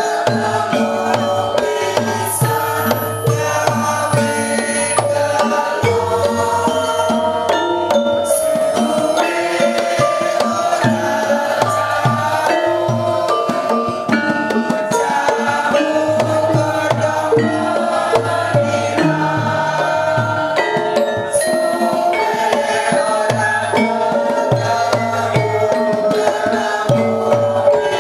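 Music with a steady hand-drum beat under pitched melody instruments, in a Javanese folk-song style.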